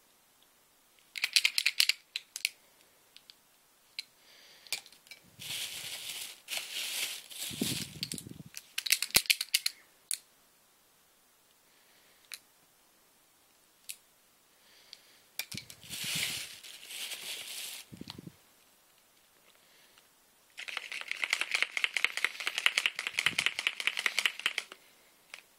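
Clear plastic bag crinkling and markers rattling inside it as hands rummage through it, in four bouts of handling with quiet pauses between; the longest bout comes near the end.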